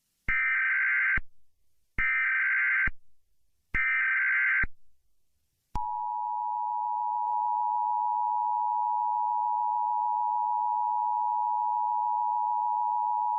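Emergency Alert System SAME header: three identical buzzy digital data bursts, each about a second long, followed about six seconds in by the steady two-tone EAS attention signal (853 and 960 Hz) that carries on to the end.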